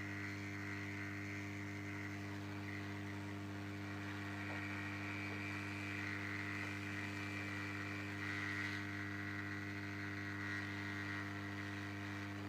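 Hot air rework gun blowing steadily, a hum with an airy hiss, as it heats a small microphone on a circuit board to melt the solder under it.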